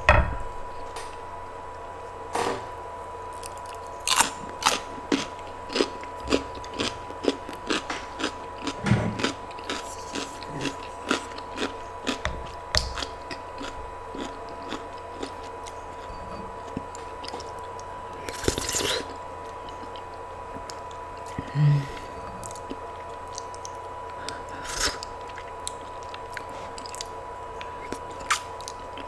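A person eating crunchy food close to the microphone: irregular bites, crunches and chewing sounds, with a steady faint high tone underneath.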